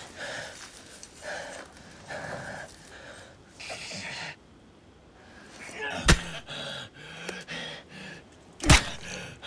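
A man gasping and breathing hard in short bursts, then two loud sharp hits about two and a half seconds apart, with low grunting sounds between them.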